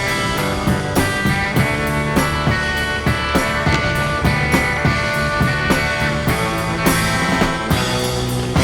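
Rock music with drums, bass and guitar and a steady beat.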